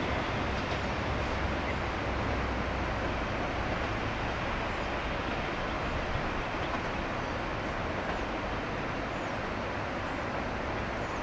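JR Shikoku 2000 series diesel railcar train pulling away under power, a steady engine and running noise with a low hum that eases a little after the first few seconds as the train draws off.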